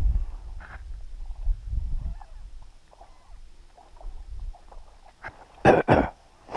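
Wind buffeting the microphone with a low rumble, then near the end a quick pair of loud goose honks and a third just after.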